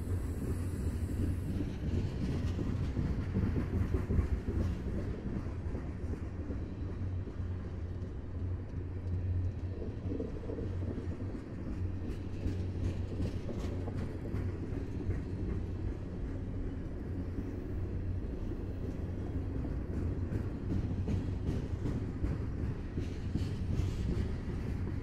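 Freight train cars rolling past: a steady low rumble of wheels on rail, with occasional sharp clacks.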